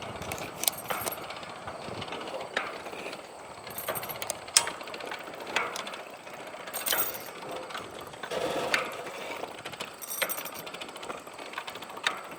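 Irregular light metallic clicks and knocks, one or two a second, some with a brief ring, from the metal parts of a windmill head being handled and worked on.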